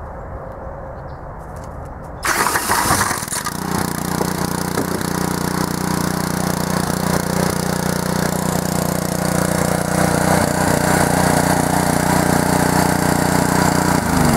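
Honda GC190 single-cylinder overhead-cam engine, turned over with a cordless drill on the flywheel nut, catches suddenly about two seconds in and then runs steadily on its own. Its pitch dips right at the end.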